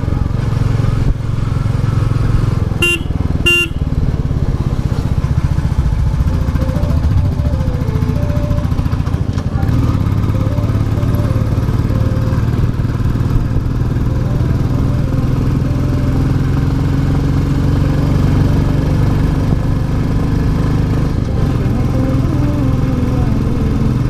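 Royal Enfield Classic 350's single-cylinder engine running steadily while riding. Two short horn beeps sound about three seconds in.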